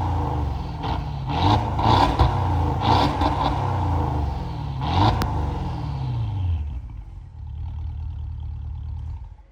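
2006 Porsche Cayenne Turbo S twin-turbo V8 revved in several quick blips, its pitch rising and falling, then settling back toward idle. The revs are held to about 4,000 rpm. The sound cuts off suddenly near the end.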